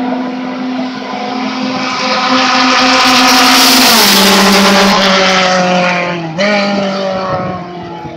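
Race car engines passing at speed on the circuit: the note swells to its loudest about four seconds in, then drops in pitch as the car goes by. A little after six seconds a second engine surge cuts in suddenly and fades again.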